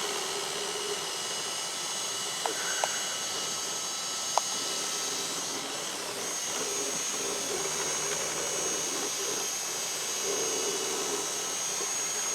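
Power drill running steadily with a thin high whine, with a few sharp clicks about two to four seconds in.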